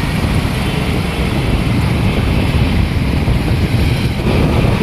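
Steady wind rush over the microphone mixed with motorcycle engine and road noise, heard from the pillion seat of a moving motorbike.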